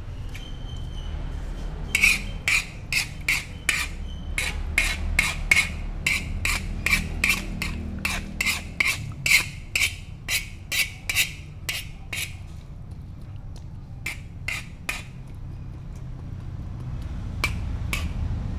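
Metal spoon stirring in a large metal wok, knocking and scraping against its side: a quick run of ringing clinks, about two or three a second, stopping about two-thirds of the way through, then a few more near the end. A low steady rumble runs underneath.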